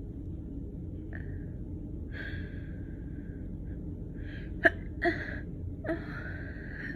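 A woman's gasping, hitching inhales as a sneeze builds up. A sudden sharp catch comes about two-thirds of the way through, and a long drawn-in breath follows near the end.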